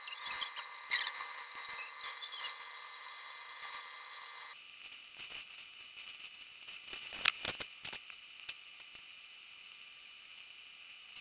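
Quiet eating sounds from a sausage bun in its plastic wrapper, over a steady hiss. There is one sharp click about a second in and a cluster of sharp clicks and crackles about seven to eight seconds in.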